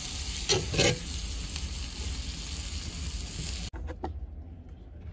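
Food sizzling in a hot frying pan, with two loud scraping strokes of stirring about half a second in. The sizzle cuts off abruptly about three and a half seconds in, leaving a few faint clicks.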